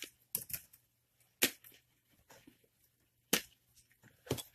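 Irregular sharp clicks and knocks, about six, from feeder bowls and containers being handled while loose superworms are picked up.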